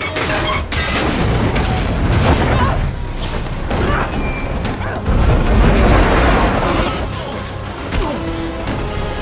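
Action-film soundtrack: dramatic score music under heavy impacts and metal crashes. A deep boom swells about five seconds in.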